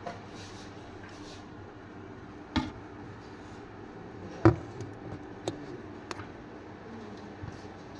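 A steel bowl knocking against the freezer shelf and being pushed in, with the loudest knock about halfway through and a few lighter clicks around it, over a faint steady hum.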